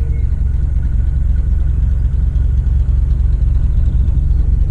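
Widebeam canal boat's diesel engine running steadily while under way, a constant low rumble.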